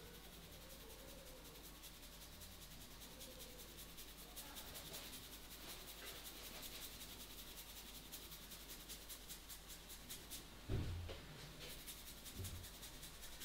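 Hands rubbing the scalp and hair in a head massage, as fast, scratchy rubbing strokes. Two dull thumps come near the end.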